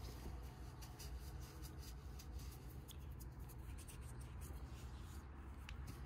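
Light, quick clicks and scratching sounds, scattered irregularly over a steady low background.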